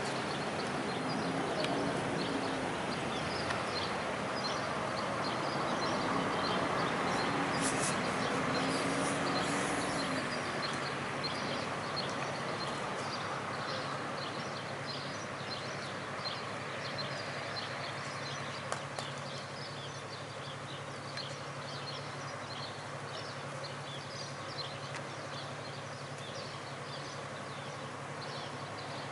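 Dry-powder fire extinguisher discharging into a crashed car's smouldering engine bay, a steady hiss that eases after about ten seconds. A low steady engine hum then comes in, with faint high chirps throughout.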